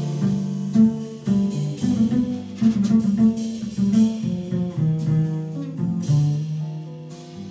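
Jazz quartet playing live: an archtop electric guitar plays a line of single notes over pizzicato upright bass, with keys and drums.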